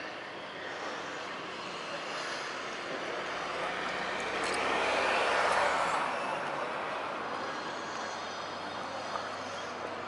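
A vehicle passing by: a steady rushing noise that swells to a peak about halfway through and then fades away.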